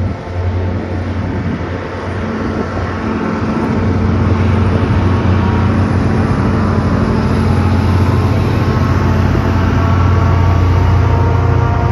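A vehicle's engine running steadily with a low hum, growing louder about four seconds in.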